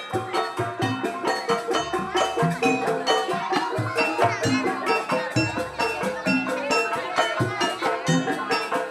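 Jaranan dance accompaniment: a traditional Javanese ensemble of drums and tuned struck percussion playing a busy, steady rhythm.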